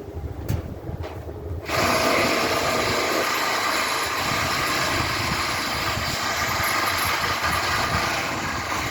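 A machine runs with a loud, steady, hissing noise that starts abruptly about two seconds in and cuts off suddenly near the end, over a low rumble.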